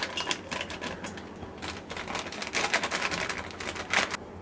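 Plastic flour packet crinkling and crackling as gram flour is tipped and shaken out of it. The crackles come in a dense run, busiest in the middle, with a last sharp burst near the end.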